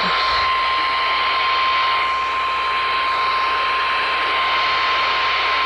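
NOAA Weather Radio 1050 Hz warning alarm tone: one steady high beep over heavy radio static from a weather radio receiver. The tone signals that a warning message is about to be broadcast.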